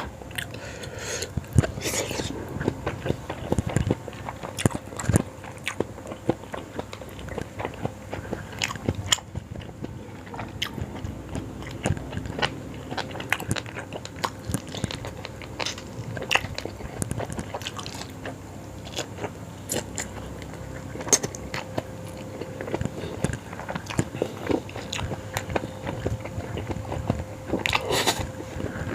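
A person eating yong tau foo close to the microphone: bites and chewing, with irregular sharp crunches and clicks.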